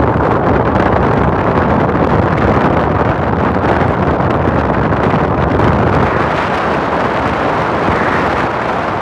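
Wind buffeting a phone's microphone in a moving car, a loud steady rush mixed with the car's road noise.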